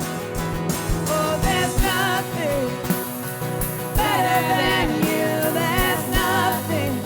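Live worship band playing a contemporary Christian song, with a sung melody wavering over sustained chords and a steady low drum beat.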